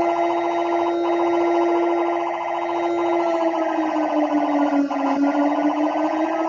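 Siren tone of a mock emergency alert: one sustained, steady pitch that sags a little lower around four to five seconds in, then comes back up.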